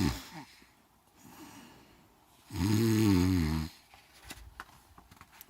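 A person imitating a snoring bear: one snore trailing off just after the start, then a second snore about a second long near the middle.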